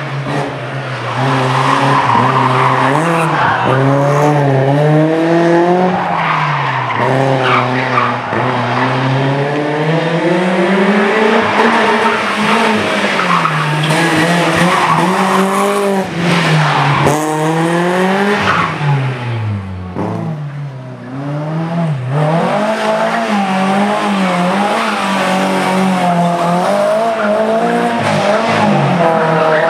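Rally car engines revving hard through a tight cone course: a BMW E36 3 Series, then a Renault Clio. The pitch keeps rising and falling with throttle and gear changes, and the tyres squeal as the cars slide on the asphalt.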